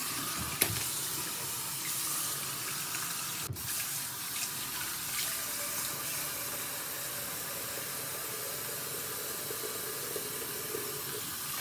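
Water running steadily from a tap into a sink while the face is rinsed with cupped hands. A short click sounds about half a second in.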